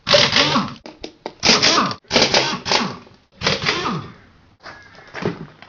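Pneumatic impact wrench hammering in five short bursts, each with a falling whine as the air motor runs down, undoing 13 mm wheel bolts.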